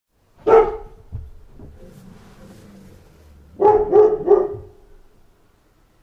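A dog barking: one loud bark about half a second in, then a quick run of three barks about three seconds later.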